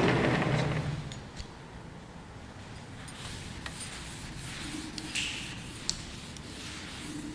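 Blackboard duster wiping chalk off a chalkboard: a loud rasping scrub at the start that fades within the first second, then softer, intermittent rubbing strokes with a couple of light taps.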